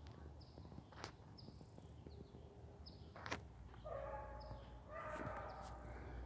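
A small bird chirping in short, high, falling notes about once a second, against faint outdoor rumble. A few sharp clicks are heard, and near the end come two louder, lower drawn-out calls from another animal.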